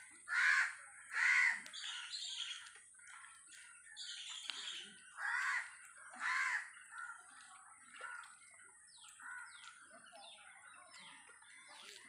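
Crows cawing: two loud caws about a second apart, then another pair about five seconds later, with fainter bird calls and quick falling chirps in between.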